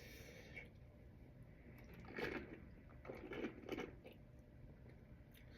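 Faint chewing and mouth sounds, with a few short soft crunches about two seconds in and again between three and four seconds in.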